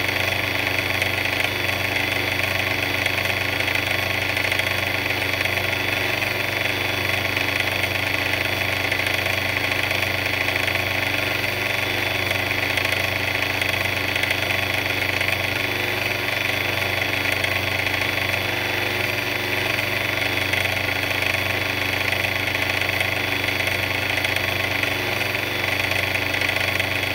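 A big mixer running steadily with an even, unchanging machine hum.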